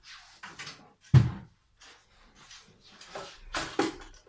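Handling noise on a desk: a series of short rustles and clicks, with one sharp knock about a second in and a busier patch of rustling and knocks near the end.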